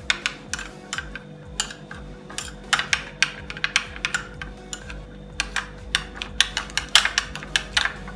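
Metal spoon stirring mayonnaise in a small glass bowl, clinking and tapping against the glass in quick, irregular clusters of clicks.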